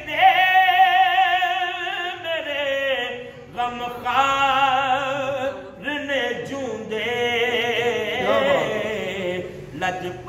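A man singing a Punjabi naat unaccompanied, in long held phrases with a wide wavering vibrato, pausing briefly for breath twice.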